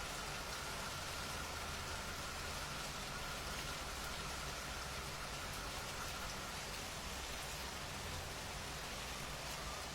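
Steady rain falling and pattering on surfaces, an even hiss that holds at one level. A faint steady high tone sits beneath it and fades out about two thirds of the way through.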